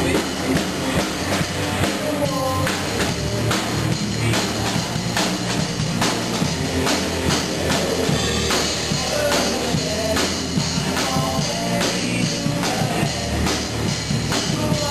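A live rock band playing: drum kit beating steadily under electric guitars.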